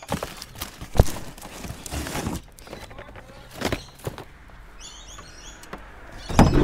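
Sharp knocks and clatter from junk being handled and shifted in a kerbside rubbish pile, about half a dozen separate knocks, with louder rustling starting right at the end.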